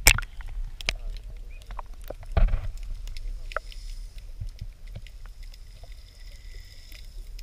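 Water and housing noise from a GoPro in its waterproof case at and below the surface: a steady low rumble with scattered sharp clicks, a loud knock at the start and a short splashy burst about two and a half seconds in.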